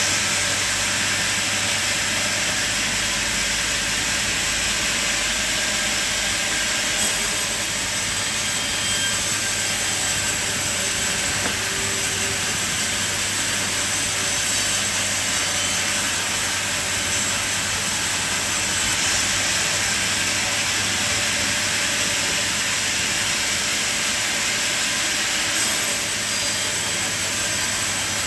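Sawmill machine running steadily: an even hissing noise over a constant low hum, with no breaks or changes.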